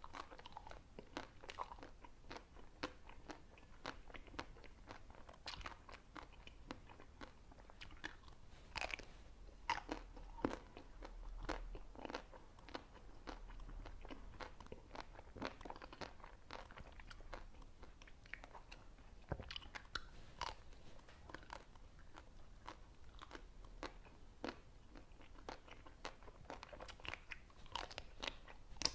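Ice cream being bitten and chewed, with many irregular crisp crunches.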